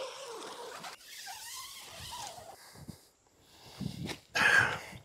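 Tent fabric and camping gear being handled, rustling, with a louder short rustle or scrape a little past four seconds as a stuff sack is set down at the tent door.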